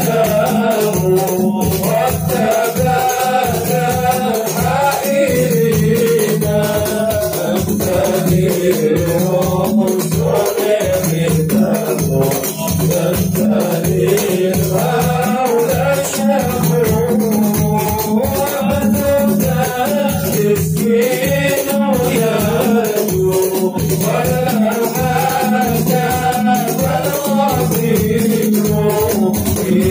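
A group of men singing an Arabic devotional song (sholawat) in unison, with hand-held frame drums (rebana) beating a steady, fast rhythm beneath the melody.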